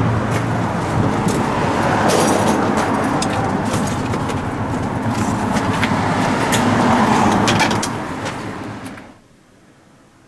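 Road vehicle noise with scattered clicks and knocks, swelling and then fading, and giving way to quiet room tone about nine seconds in.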